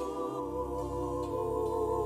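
Background music of sustained, gently wavering tones with no beat.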